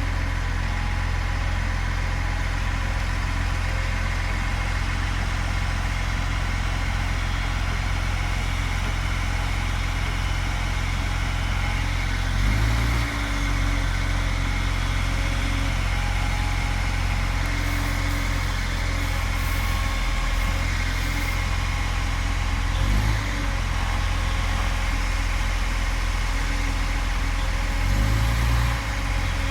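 Heavy diesel engine idling steadily, briefly changing note three times: about twelve seconds in, about twenty-three seconds in, and near the end.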